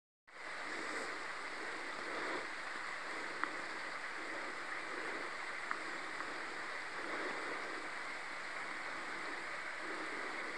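Steady rushing outdoor ambience, with two short sharp ticks about three and a half and six seconds in.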